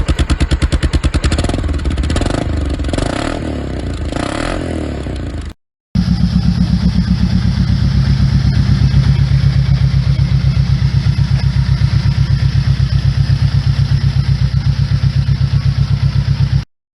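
Honda Rebel 500's parallel-twin engine running through a Diablo Super Bom slip-on exhaust with built-in dB killer: about five seconds with a few short throttle blips, a brief cut, then about ten seconds of steady even idle that stops abruptly.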